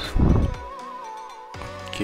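Background music: a low thump early on, then a single wavering held note that stops about one and a half seconds in.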